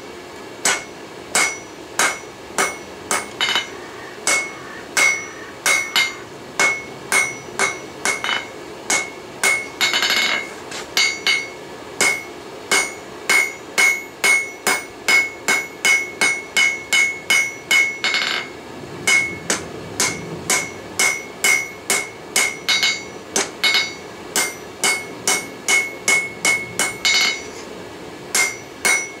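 Hand hammer forging a red-hot railroad spike on a Peddinghaus anvil: a steady rhythm of sharp blows, about two a second with a few short breaks, each with a bright ringing note from the anvil.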